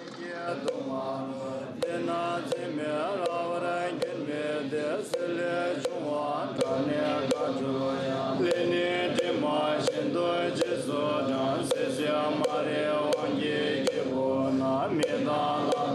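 A Buddhist mantra chanted on sustained pitches, with a steady knock about every three-quarters of a second from a carved wooden fish drum struck with a beater.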